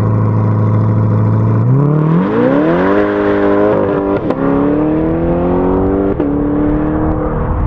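2021 C8 Corvette's 6.2-litre LT2 V8, through a 2M Fabrication cat-back exhaust, idling steadily and then accelerating away. The pitch climbs and drops sharply twice, at about four and six seconds, as it shifts up.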